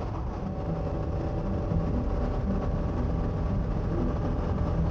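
Motorcycle riding steadily at road speed: a continuous engine drone mixed with wind and road noise.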